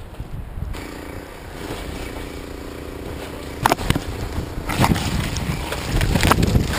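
Wind buffeting the microphone of a GoPro on a foam RC plane caught in a cedar tree, with several sharp knocks and scrapes as branches strike the plane while it sways. A faint steady hum joins about a second in.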